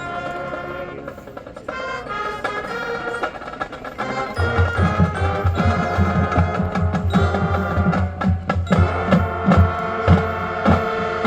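High school marching band playing, with mallet percussion ringing over held instrumental tones; about four seconds in, a steady run of low drum hits comes in under the band.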